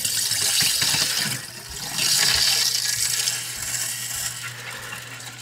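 Water rushing and hissing through the main shut-off valve as it is opened by hand, filling the house's pipes to pressurize them. The rush comes in two surges and then fades, over a steady low hum.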